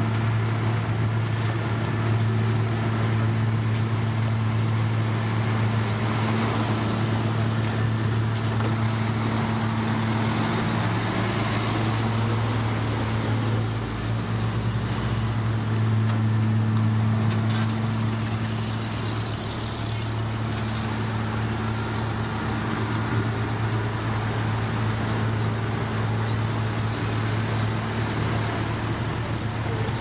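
Heavy diesel machinery running steadily: a road paver laying base course with a dump truck feeding its hopper, giving a low, even engine hum. The engine pitch briefly rises and falls about twelve seconds in.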